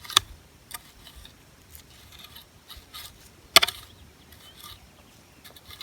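Small hand dandelion weeder scraping and scratching through garden soil over small weeds in short strokes, with two sharper clicks, one just after the start and one about three and a half seconds in.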